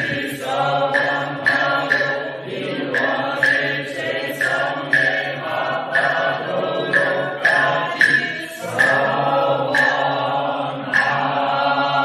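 A mixed group of men and women chanting together in unison, a steady rhythmic chant whose notes change about twice a second, with a brief pause for breath near the end.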